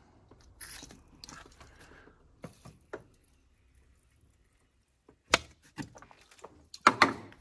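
Short, faint hiss of an aerosol cleaner sprayed into a petrol engine's open air intake as a quick crank-no-start test, followed a few seconds later by a couple of sharp clicks and knocks.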